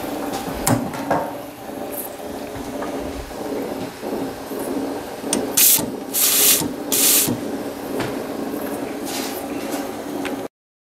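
Three short hisses of steam, about five and a half to seven seconds in, as the weighted lever of the Märklin ship engine boiler's safety valve is lifted by hand to vent steam, over a steady background noise.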